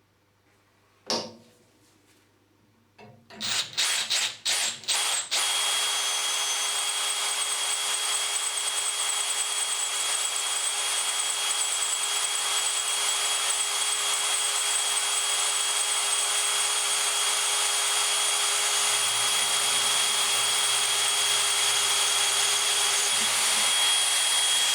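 A power drill fitted with a Workzone HSS bit, drilling through 8mm thick 316 stainless steel. There is a click about a second in, then a few short starts of the drill, then steady cutting for about twenty seconds that stops abruptly at the end.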